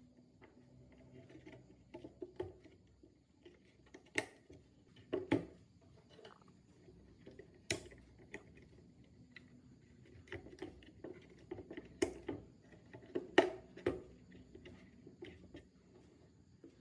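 Irregular light clicks, taps and knocks of small hard parts being handled and fitted, with a few sharper knocks about 4, 5, 8, 12 and 13 seconds in.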